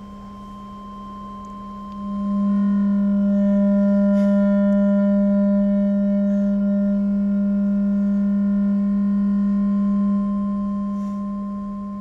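Sonified X-ray data from the Swift spacecraft's X-ray telescope, heard as two steady electronic tones, one high and one low. About two seconds in the low tone swells much louder with overtones, holds, and fades near the end. The high tone stands for high-energy X-rays from a nova's shock wave ripping through the red giant's wind. The low tone stands for cooler, lower-energy X-rays from the hot white dwarf's surface, which brighten for a while and then fade as its hot gas is used up.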